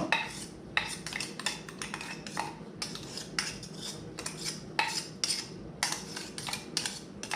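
A spoon scraping and knocking around inside a grinder's wet-attachment cup, scooping out minced garlic: a string of irregular clicks and scrapes, a few each second.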